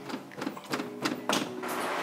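Factory steering wheel knocking and rattling against its partly unthreaded retaining bolt as it is yanked and wrenched off the steering column, in a quick run of sharp knocks.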